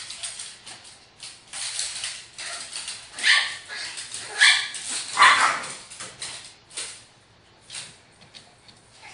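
Small dogs barking at play: a toy poodle and a Cavalier King Charles Spaniel. A run of short, sharp barks builds to its loudest in the middle, then quiets, with only a few scattered sounds near the end.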